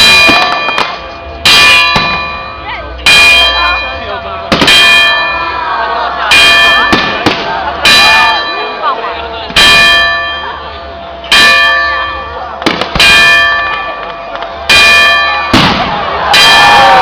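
Church bell tolling steadily, about eleven strikes roughly a second and a half apart, each ringing on and fading before the next.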